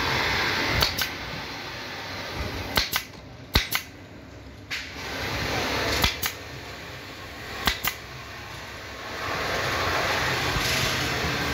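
Pneumatic upholstery staple gun firing staples through fabric into a wooden sofa frame: sharp shots, mostly in quick pairs, about nine in all.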